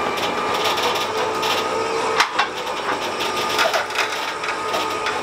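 Electric trailer winch running steadily as it drags an old car whose wheels don't roll up the trailer deck, with small creaks and clicks from the car and cable, and a sharp knock about two seconds in.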